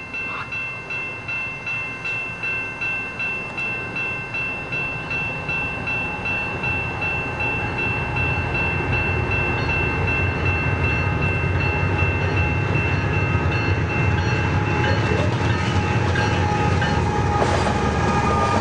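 A railroad crossing bell rings steadily, about two strikes a second. Under it, a freight train's GE Evolution-series diesel locomotives rumble in, growing louder about halfway through as they pass close by.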